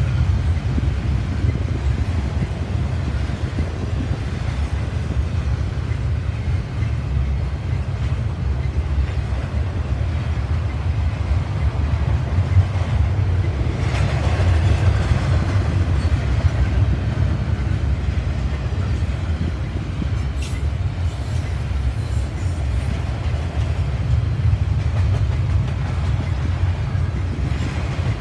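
Double-stack intermodal container cars rolling past: a steady low rumble of steel wheels on the rails.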